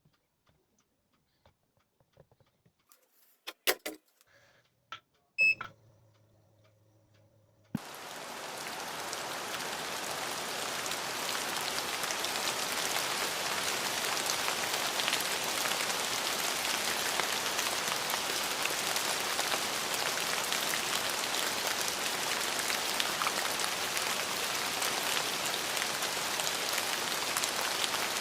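A few sharp clicks and a brief beep over a low hum, then about eight seconds in, steady rain starts suddenly, swells over a couple of seconds and keeps falling evenly.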